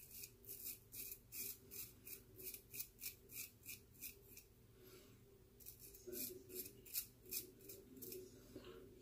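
Faint scraping of a shavette razor drawn through lather over a shaved scalp in short quick strokes, about three a second, with a break of about a second in the middle before the strokes resume.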